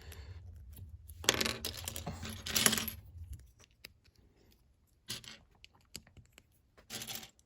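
Small plastic Lego pieces clicking and clattering as they are handled and snapped together. A busy stretch of rattling early on is followed by a few single sharp clicks.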